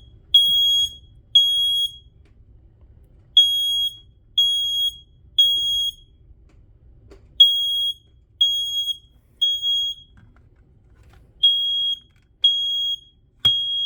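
Smoke alarm sounding in full alarm, set off by test smoke. High-pitched beeps come in the temporal-three evacuation pattern: three half-second beeps a second apart, then a pause of about a second and a half, repeating. A sharp click comes near the end.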